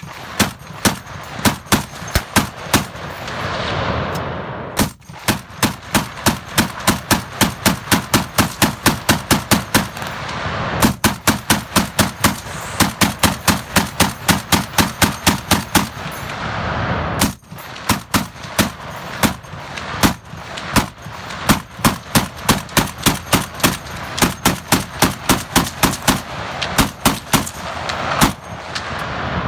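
M2-SLR .50-calibre heavy machine gun firing through an ammunition belt: rapid, evenly spaced shots, several a second, in long strings with short breaks about 5, 11 and 17 seconds in.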